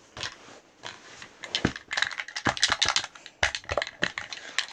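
A rapid, irregular run of sharp clicks and knocks, like small hard objects clattering or being handled, sparse at first and much denser from about one and a half seconds in.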